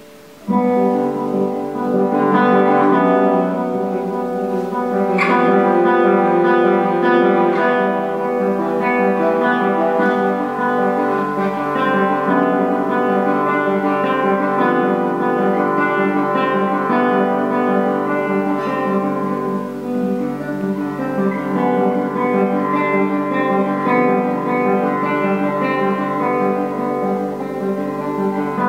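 Solo nylon-string classical guitar played with the fingers: a sudden loud entry about half a second in, then a continuous flow of plucked notes and chords.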